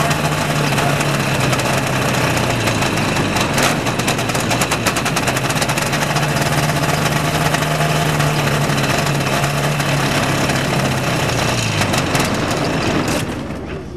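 Small engine of a home-built ultralight airplane running steadily with its propeller turning, then shut down about thirteen seconds in and dying away.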